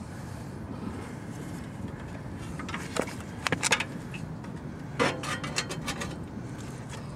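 Metal clicks, knocks and scraping as a small go-kart engine is handled and shifted onto its mounting plate on the kart frame: a cluster of sharp clicks about three seconds in and another about five seconds in.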